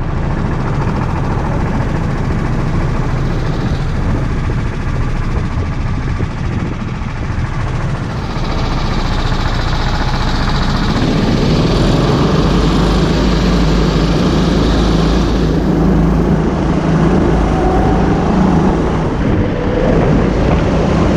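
Go-kart engines running steadily as the karts roll around the track, heard from the driver's seat of one kart. The sound grows louder about halfway through, and an engine note rises near the end as the kart speeds up.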